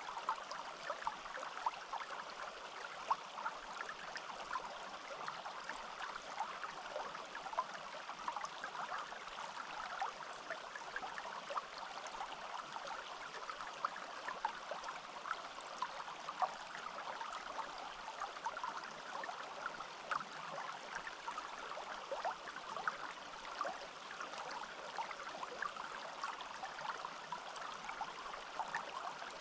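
Small forest stream babbling and trickling steadily, with many small splashes and gurgles over the running water.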